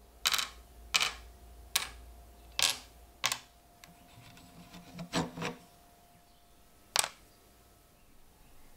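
Hard spacer washers clicking and knocking as they are handled and slid onto a rusty metal rod, about eight sharp, separate clicks at uneven intervals.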